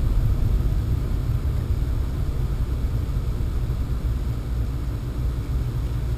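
Pontiac Sunfire driving, heard from inside the cabin: a steady low rumble of engine and road noise.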